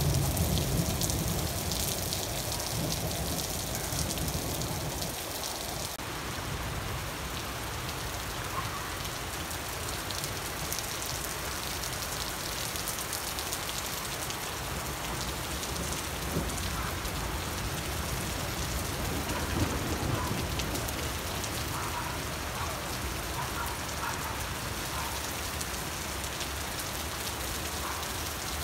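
Steady rain pouring onto tree foliage during a thunderstorm, an even hiss of drops on leaves. A low rumble sits under it for the first five seconds or so.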